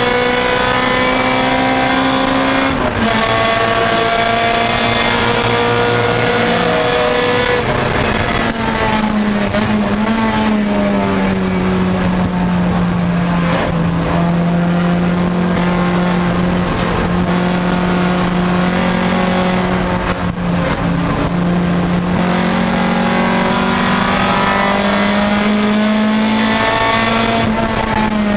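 Nissan Pulsar GTi-R race car's SR20 four-cylinder engine heard from inside the cabin, running hard near 7,000 rpm at full throttle with a brief dip about three seconds in. From about eight seconds in the revs fall away off the throttle, then hold steady at mid revs before climbing again. Near the end they drop once more as the throttle is closed.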